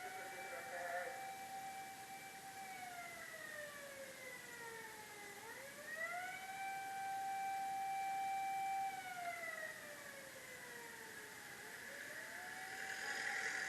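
Fire engine siren wailing in long cycles. Each rises quickly, holds one steady tone for a couple of seconds, then slides slowly down before rising again, about every six seconds.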